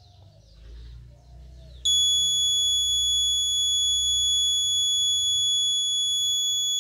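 Piezo buzzer on an Arduino automatic school-bell timer sounding one steady high-pitched tone for about five seconds, starting about two seconds in: the sixth scheduled bell, set off by the DS3231 real-time clock.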